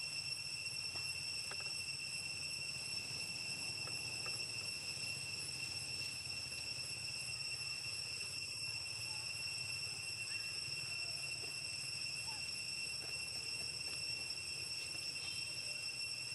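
Steady high-pitched insect drone, one unbroken shrill tone with overtones, over a faint low rumble.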